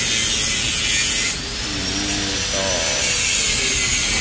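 Steady hissing workshop noise with soft rubbing as glass-wool packing is stuffed by hand into a motorcycle exhaust silencer canister; a faint voice is heard briefly about two seconds in.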